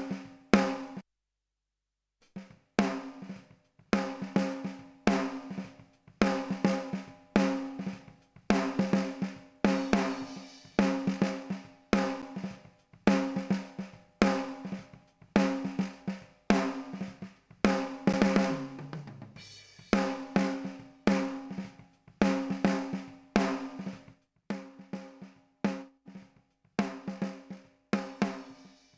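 Drum kit playing a steady beat, its snare hits ringing with a pitched tone. The drums stop for about a second just after the start, then the beat resumes, and a short falling drum tone sounds about two-thirds of the way through.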